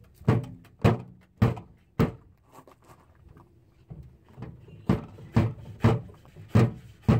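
The back of a hammer striking a car's sheet-steel door panel from behind to knock a large dent back out: four blows about half a second apart, a pause, then five more, each a dull thunk with a short metallic ring.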